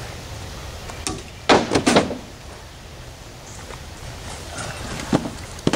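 Clunks and knocks of hard objects being handled: a quick run of about four loud clunks about one and a half seconds in, then two sharper knocks near the end.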